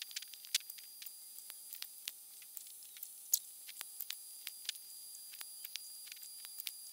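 Sped-up sounds of hand work on a power-supply wiring harness with wire cutters and soldering tools: faint, rapid, irregular clicks and ticks over a faint steady high whine.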